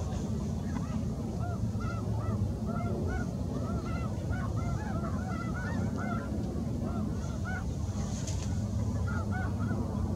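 A flock of birds calling: many short calls, each rising and falling in pitch, come several a second and overlap. Underneath is a low, steady rumble.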